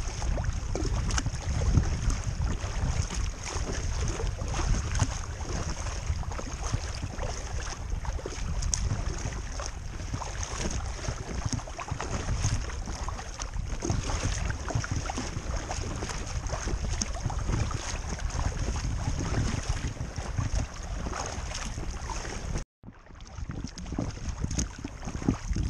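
Paddle strokes splashing in the water beside an Intex Challenger K1 inflatable kayak, with small waves lapping and wind buffeting the microphone. The sound cuts out for a moment near the end.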